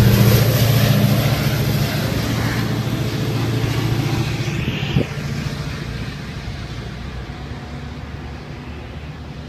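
Caltrain diesel locomotive and its train moving away, the engine's low drone and the rumble of the cars fading steadily. A single sharp knock about halfway through.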